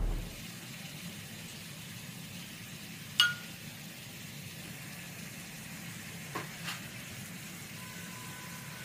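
Quiet kitchen sounds while a pear tart is glazed with a pastry brush: a steady low hiss, one sharp ringing clink of a utensil against metal or glass about three seconds in, and two faint ticks a little later.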